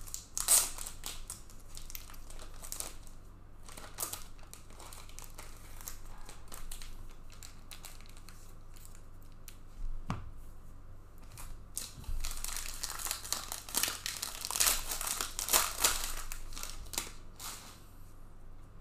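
Crinkling and tearing of trading card pack wrapping as packs are opened and cards handled, with scattered clicks and a soft thump about halfway. A dense run of crinkling comes in the last third.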